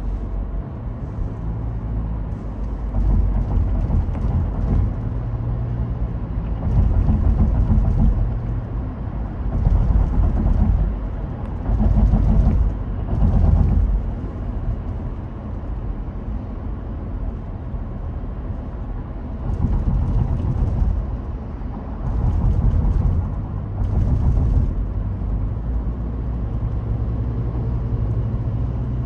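A car driving through city traffic: a continuous low engine and road rumble with a faint steady hum, swelling louder into a hiss of tyre and traffic noise several times for a second or two at a time.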